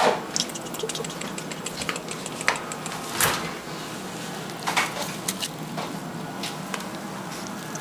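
Kittens' claws scratching and tapping on a cardboard box and a wire crate: scattered light clicks and scratches, with louder scrapes about three and five seconds in.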